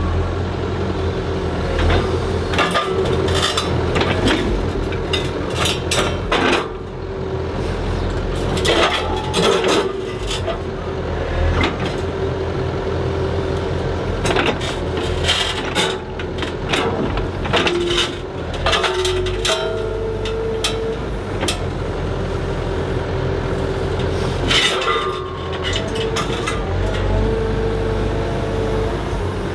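Komatsu HB215LC hybrid excavator running with a steady low engine note and a whining tone that shifts in pitch as the boom and grapple move, broken by frequent sharp knocks and scrapes of steel grapple against rock.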